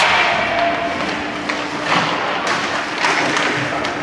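Ice hockey game play in an arena: a steady wash of skating and crowd noise with several sharp knocks of sticks, puck and boards.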